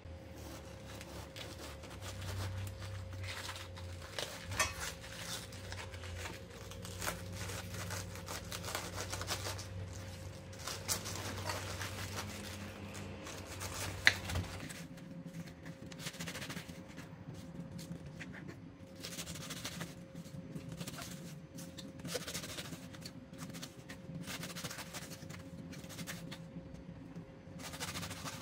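Knife slicing through a raw cabbage onto a wooden cutting board: repeated short cutting strokes. A low hum underneath stops about halfway through.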